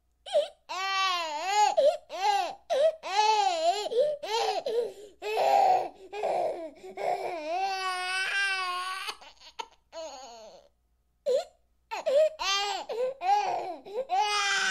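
A baby crying: a string of high, wavering wails broken by short catches of breath, dropping away briefly about two-thirds through before the wailing picks up again.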